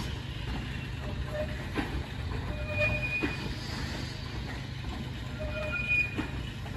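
Passenger train passing at speed: a steady rumble of wheels on the rails, with scattered clicks over rail joints and two brief high wheel squeals, about three seconds in and again about six seconds in.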